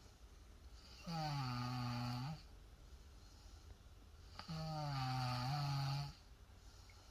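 A nine-year-old child snoring in sleep: two long, buzzing snores about three seconds apart, each dipping in pitch and rising again as it ends.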